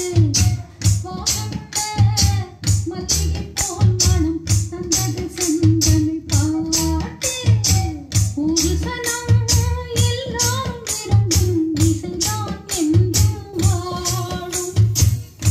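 Song with singing over a steady beat, played back from a cassette tape on a Denon DRM-540 stereo cassette deck.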